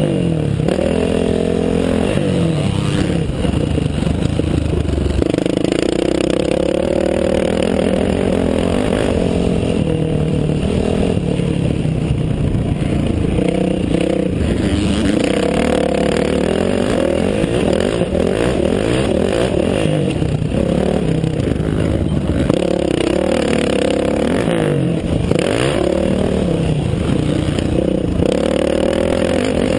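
Dirt bike engine heard from the rider's own helmet, revving up and dropping back over and over as it accelerates, shifts and slows through the turns and straights of a motocross track.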